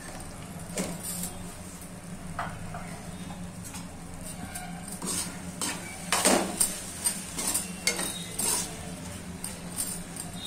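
Flat metal spatula stirring and scraping thick prawn curry around a metal kadai. A few isolated clicks come first, then a run of quick scrapes from about halfway through, over a steady low hum.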